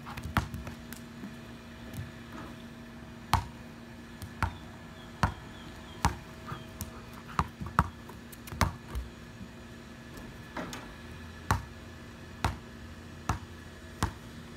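A basketball being dribbled on a concrete slab: sharp bounces at an uneven pace of roughly one a second.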